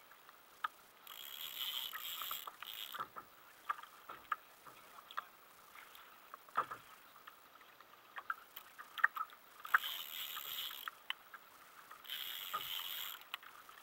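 Spinning fishing reel whirring in three short spells of about a second each while a hooked fish is played, between scattered sharp clicks and knocks of tackle.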